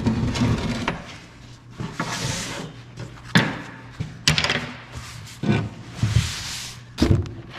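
Clunks and knocks from transfer-case parts being handled on a workbench: several separate sharp knocks, with two brief hissing scrapes about two and six seconds in, over a low steady hum.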